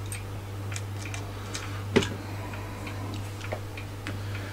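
Small irregular metal clicks and taps as fingers and tweezers work at the parts of a Commodore 1571 floppy drive's head mechanism, trying to lever a piece out, with one sharper click about two seconds in. A steady low hum runs underneath.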